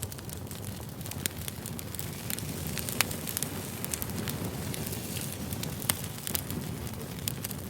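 Wood fire burning: a steady low rumble with frequent sharp crackles and pops, two of them standing out louder, about three seconds in and again near six seconds.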